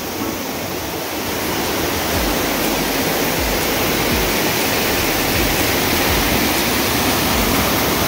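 Fast-flowing river water rushing steadily, growing a little louder about two seconds in.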